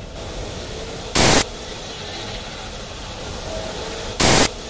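Steam train running with a steady low rumble, broken twice, about three seconds apart, by short loud bursts of hiss.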